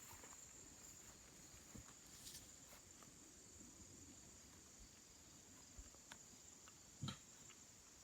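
Near silence: a faint, steady high-pitched insect drone, with a few soft clicks, the clearest about seven seconds in.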